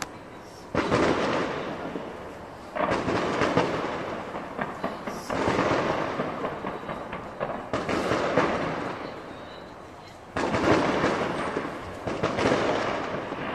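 Distant aerial fireworks display: about six sudden booms, two to three seconds apart, each trailing off in a long rumbling echo.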